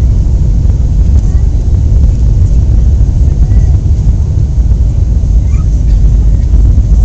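Airliner cabin noise: a loud, steady low rumble of engines and rushing air heard from inside the cabin during the landing.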